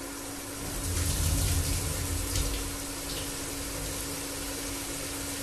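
Water being poured off soaked chana dal, splashing loudest from about one to three seconds in, then running on more lightly.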